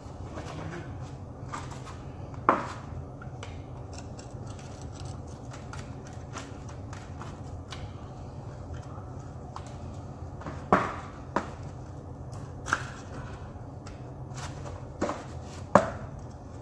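Sharp clinks and knocks of hand tools and parts being handled during a manual transmission teardown, about six in all, spread out, with the loudest near the end. A steady low hum runs underneath.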